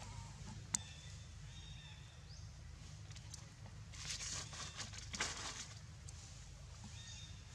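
Faint outdoor ambience with a steady low rumble. There is a sharp click about three-quarters of a second in, short thin high calls, and two bursts of rustling about four and five seconds in.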